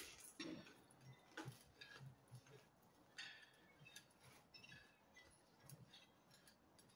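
Faint eating sounds: chewing, with scattered small clicks and scrapes as bread is wiped around a plate.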